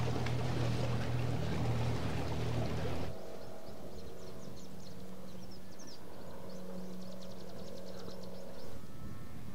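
A boat's outboard motor running close up with water noise. About three seconds in it gives way suddenly to a fainter, steady engine hum heard from a distance, with rows of short high chirps over it.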